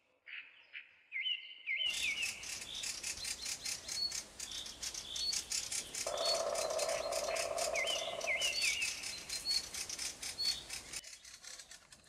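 Fieldfares giving harsh, rapid chattering alarm calls as they mob intruders. The chatter starts about two seconds in, after a few short falling whistled notes, and stops near the end. A steady hum joins for a couple of seconds in the middle.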